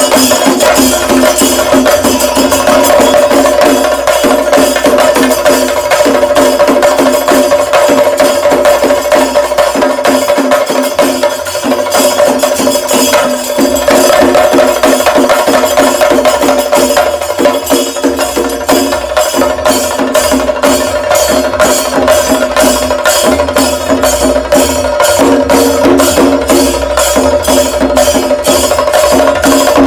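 Kerala chenda melam: a group of chenda drums beaten with sticks in fast, dense rolls, with hand cymbals keeping time. In the second half a steady beat of about two to three strokes a second stands out over the rolls.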